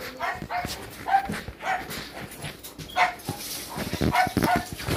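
Dog whimpering in a string of short, high cries, about seven of them spread across a few seconds.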